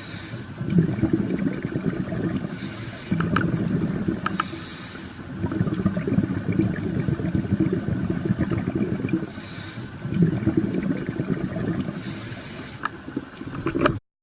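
Sea water churning, with a hissing surge every two to three seconds. The sound cuts off abruptly near the end.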